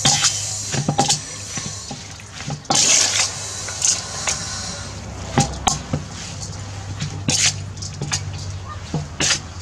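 Metal ladle scraping and clinking against a stainless steel bowl as wet noodles are tossed, in a string of irregular knocks with a noisier wet stretch about three seconds in. A steady low hum runs underneath.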